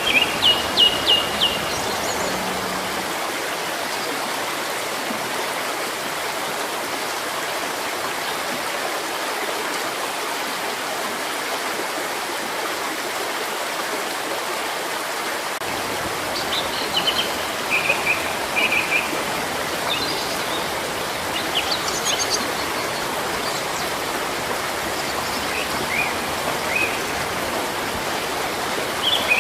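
Steady rushing of a flowing stream, with birds chirping in short bursts: a burst at the start, a run of chirps past the halfway point, and a few more near the end.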